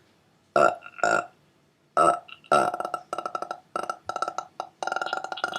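A person burping on purpose: a few short separate burps, then a long, stuttering burp broken into many quick pulses.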